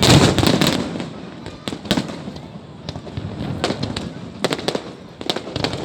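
Fireworks exploding in a loud burst of bangs at the start, then scattered cracks and pops, with a quick cluster of cracks near the end.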